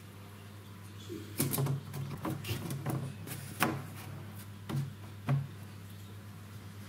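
Plastic mesh egg grid being set into a polystyrene foam incubator and pressed down: a run of clicks and knocks with some scraping, from about a second in until about five and a half seconds in, over a steady low hum.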